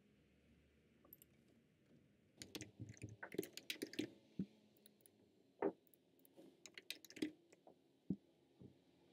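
Computer keyboard typing: a quick run of keystrokes a couple of seconds in, then scattered single clicks.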